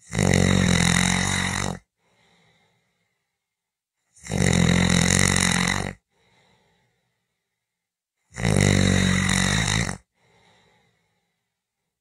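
A person snoring: three long snores about four seconds apart, each lasting nearly two seconds and followed by a faint breath.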